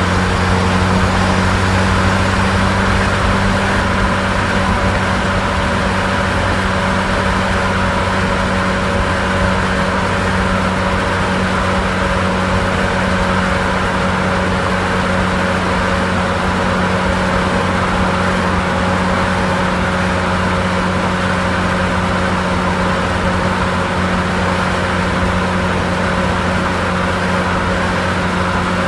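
Car engine running steadily at constant revs, a low even hum with no revving or gear changes.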